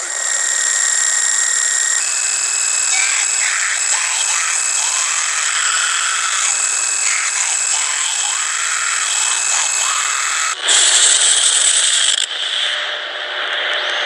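A hissing, static-like drone given as the 'sound' of Saturn's moon Mimas, with steady high whistling tones and slow rising-and-falling sweeps running through it. About ten and a half seconds in it cuts abruptly to a louder, brighter hiss, which shifts again a second and a half later.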